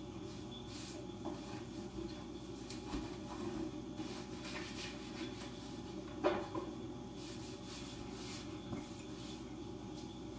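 Cloth wiping kitchen appliance surfaces: soft rubbing and handling noises, with a sharper knock about six seconds in, over steady low background noise.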